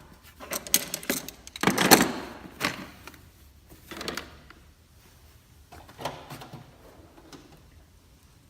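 Hand-tool clicks and metal clatter as a car battery terminal is being disconnected, busiest in the first three seconds, then a few scattered clicks.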